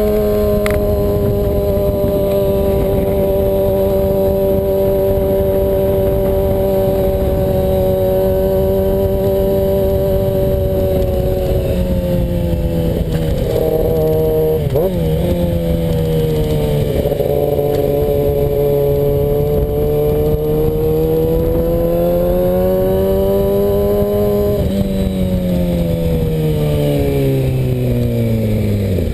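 2009 Kawasaki Ninja ZX6R's 600cc inline-four running through a Competition Werkes aftermarket exhaust while riding. The engine note holds a steady pitch for about ten seconds, drops and wavers, climbs again, then falls steadily over the last few seconds, over a low rush of noise.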